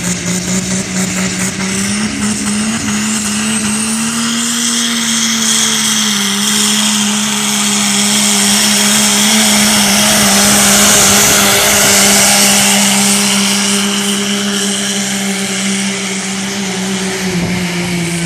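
Diesel engine of a Dodge pickup held at high revs under full load while pulling a weight-transfer sled, its pitch steady and rising slightly a few seconds in, with a strong high hiss building toward the middle. The pitch dips slightly near the end.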